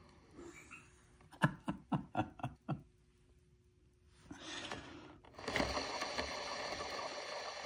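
3D-printed ducted-fan rotor handled and spun by hand: a few light plastic clicks, then from about five and a half seconds in a steady whirr as the rotor spins freely on its freshly lubricated ball bearing.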